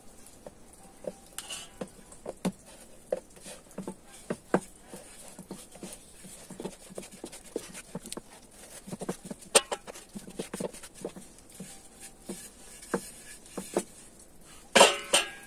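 Chapati dough being hand-patted and rolled out with a homemade bamboo rolling pin on a floured rolling board: light, irregular knocks and taps of the pin and hands against the board. A louder clatter comes near the end.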